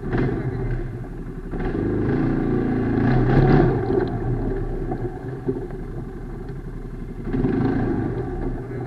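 ATV engine running and revving, building to its loudest about three seconds in and swelling again near the end.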